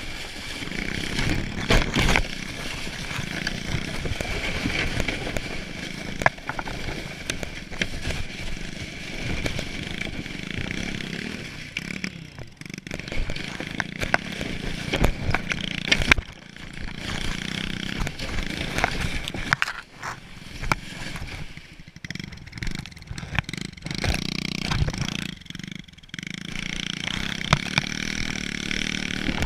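A small pit bike's engine running as it tows a plastic sled over snow, mixed with the sled scraping and knocking over the bumps. The loudness comes and goes.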